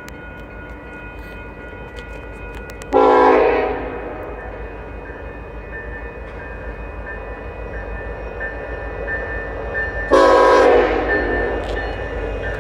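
Union Pacific freight locomotive's air horn blowing for the grade crossing: a short blast about three seconds in and another near ten seconds, each fading away. Under it, the crossing signal bell rings steadily.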